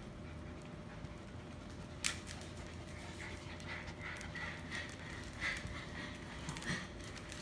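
Three-week-old puppies giving a string of short, high squeaks and whimpers, starting about three seconds in, with a single sharp click about two seconds in.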